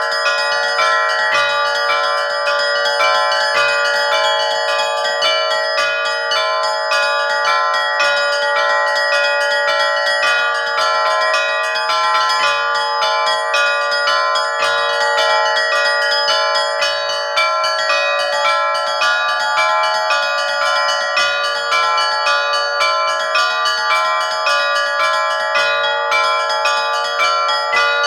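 Orthodox monastery church bells pealing: many bells struck in quick, continuous succession, their tones ringing on and overlapping without a pause.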